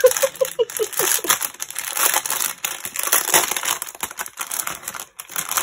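Clear plastic packaging crinkling and rustling as it is handled and worked open, a bag stuffed with small resealable bags of diamond painting drills.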